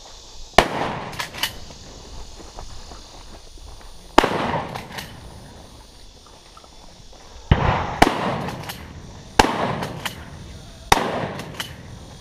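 Shotgun fired six times at uneven gaps, two of the shots about half a second apart. Each loud report is followed by a few quieter sharp knocks.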